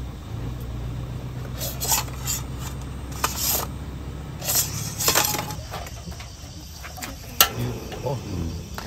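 Soup simmering in a lidded pot on a portable butane stove, with a steady low hum and a few short bursts of hiss. Crickets chirp in the background, and there is a single sharp click near the end.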